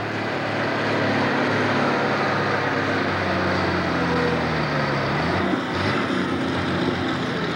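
International Harvester farm tractor's diesel engine running hard under full load, pulling a weight-transfer sled. Its pitch sags from about three seconds in as the engine lugs down.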